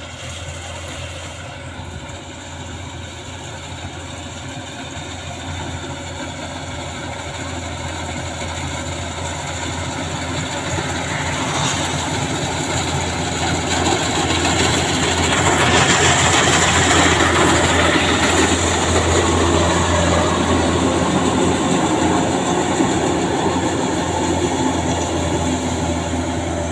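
Kubota combine harvester running while it cuts rice, its engine and machinery making a steady low hum with a rattling clatter. It grows steadily louder as it approaches, is loudest a little past the middle, then eases slightly.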